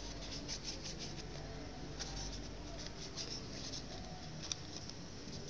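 A sheet of origami paper rustling and crinkling as hands fold and crease it, with short crackles and one sharper click about four seconds in.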